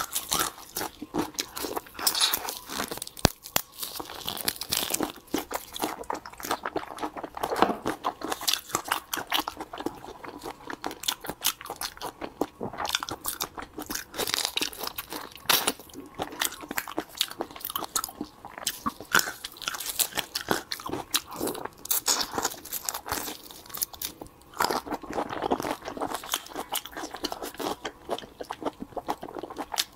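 Close-miked eating of raw marinated prawns: shells cracking and crunching, wet sucking at the meat, and chewing, in a dense irregular crackle that never stops for long.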